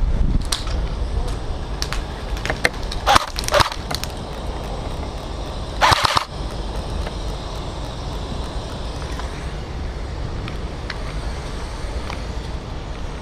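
Scattered airsoft gun shots as sharp cracks, with a quick cluster of several about three seconds in and a louder short burst around six seconds, over a steady low rumble on the microphone.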